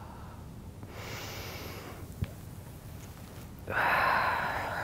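A woman's audible breathing while moving through yoga poses: a soft breath about a second in, then a loud inhale starting suddenly near the end as her arms sweep overhead. A faint tap just after two seconds.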